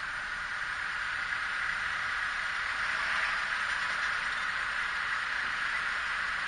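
Street traffic: a pickup truck towing a flatbed trailer drives past, heard as a steady noise that swells about three seconds in and eases off.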